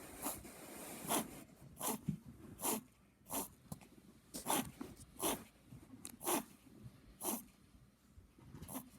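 A Yorkie-Maltese (morkie) puppy reverse sneezing: a run of short, sharp snorting inhalations through the nose, about one a second, a sign of a spasm or irritation of the throat and soft palate.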